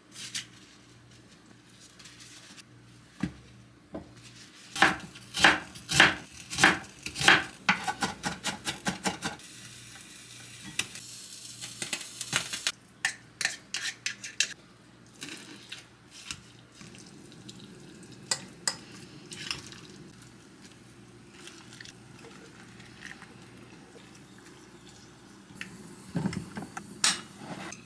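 Kitchen cooking sounds: a run of sharp knocks and clinks of utensils against dishes and pans, with a few seconds of sizzling hiss in the middle.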